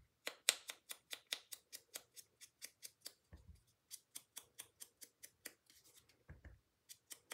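Ink applicator brushed over cardstock in quick, even scratchy strokes, about five a second, with two soft thumps partway through.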